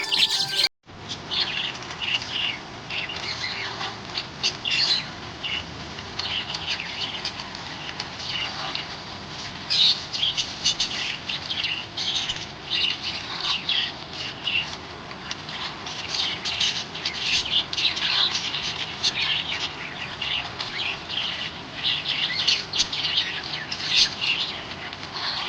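Pet budgerigars chirping and chattering in a dense, continuous flurry of short chirps and squawks, starting after a brief break about a second in.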